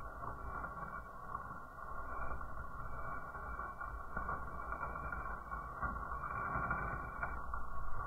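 Wood fire burning in a fireplace behind its glass door: a steady rushing hiss with a couple of faint crackling pops.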